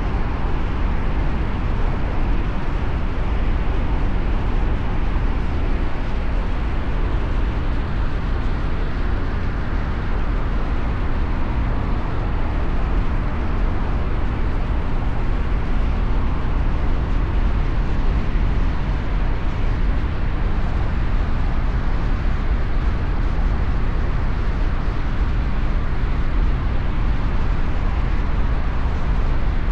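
Steady road and traffic noise from driving through city traffic: an even, deep rumble with no horn blasts or sudden events.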